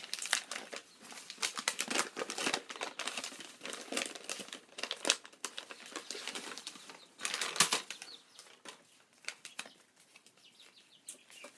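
A paper envelope being torn open and worked by hand: irregular crinkling, rustling and ripping, with the loudest rip about seven and a half seconds in.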